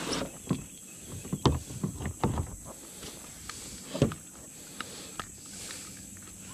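Irregular knocks and bumps on a plastic fishing kayak's hull and gear while a landed largemouth bass is held and unhooked by hand, the loudest about a second and a half and four seconds in.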